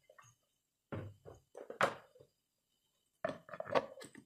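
Knocks and clicks of hard plastic as the lid of an electric mini chopper's bowl is handled and fitted into place, in two short clusters about two seconds apart.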